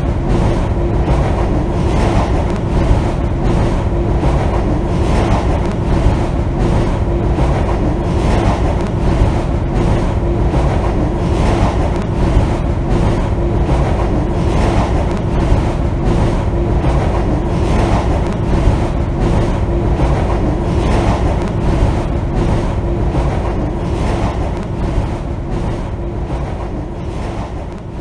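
Steady rumbling drone with one held low tone and a regular pulsing beat over it, fading out near the end.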